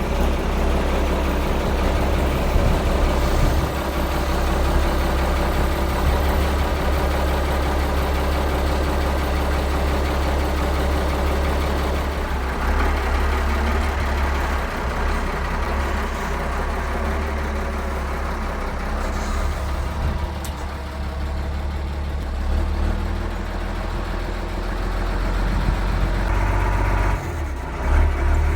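Engine of a heavy machine, likely the tractor used to lift the concrete blocks, running steadily at low revs with a deep drone. It eases a little about two thirds of the way through.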